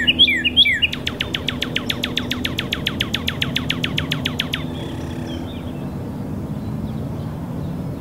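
Male northern cardinal singing: a few slurred whistles, then a fast, even run of down-sweeping notes, about eight a second, lasting some three and a half seconds. Fainter bird notes follow.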